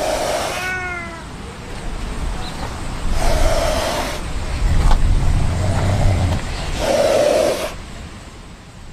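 Caged serval hissing and spitting in four harsh bursts a second or two apart, with a short falling call about half a second in.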